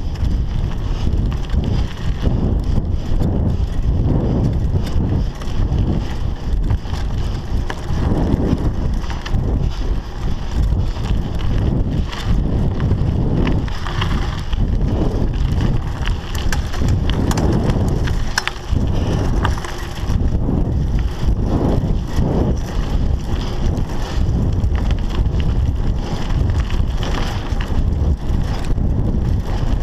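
Scott Scale 960 hardtail mountain bike riding a dirt singletrack: steady low rumble of tyres on the trail, with frequent rattles and knocks from the bike over bumps, and wind buffeting the microphone.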